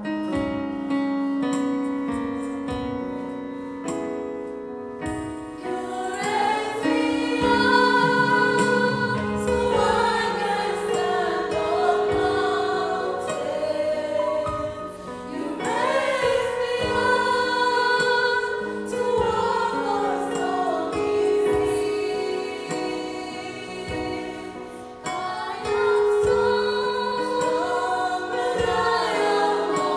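Gospel worship music: a keyboard plays alone for about five seconds, then voices come in singing over the keyboard accompaniment.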